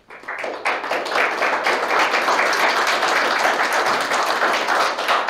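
Small audience clapping, building up within the first second and then holding steady.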